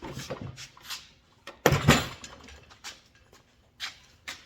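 Scattered metallic clinks and knocks of hand tools against the mini bike, with one louder clatter about two seconds in.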